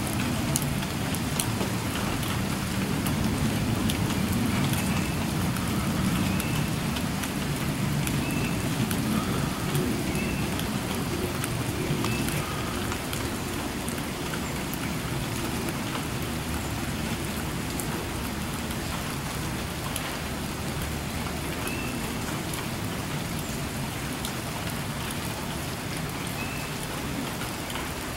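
Steady rain falling, slackening a little, with a low rumble in the first half that fades out. A few faint short high calls come through now and then.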